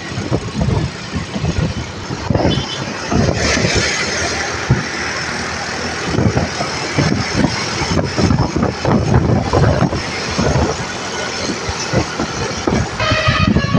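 Road and engine noise from moving traffic, with heavy rumbling gusts of wind on the microphone. About 13 s in, a bus horn with several steady tones starts sounding.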